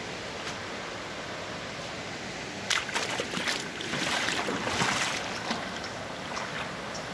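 Shallow river water running over rocks in a steady rush, with a louder spell of irregular splashing from about three seconds in that lasts a couple of seconds.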